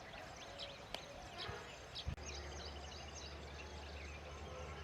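Many small birds chirping and twittering at once in short, quick calls, with a sharp click about a second in and a low steady hum setting in about two seconds in.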